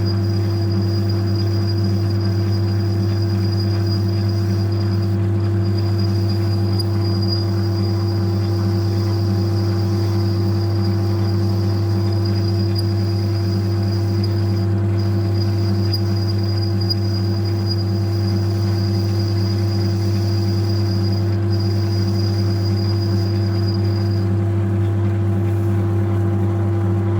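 Metal lathe running steadily while cutting a 7-degree chamfer on the rim of a diesel piston's combustion bowl: a strong even motor hum with a thin high whine above it. The whine drops out about three seconds before the end while the hum carries on.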